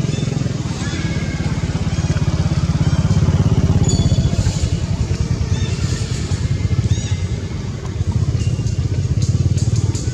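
A motor engine running steadily, a low, fast-pulsing rumble throughout, with a few short high chirps over it.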